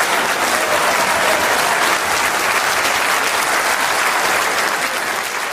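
Audience applauding: a standing ovation of dense, steady clapping that eases slightly near the end.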